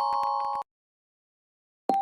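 Xiaomi Redmi Note 4 preloaded ringtone: a mallet-like chime melody of held tones over a fast, even ticking pulse, which cuts off abruptly about half a second in. After a second of complete silence, the next ringtone starts near the end with piano-like notes.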